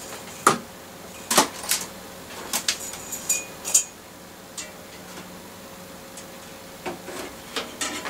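Sharp metal clicks and clinks as a bicycle's front gear cable and grip shifter are worked loose and pulled out, with a short ringing rattle a little over three seconds in. A quiet few seconds follow, then more clicks near the end.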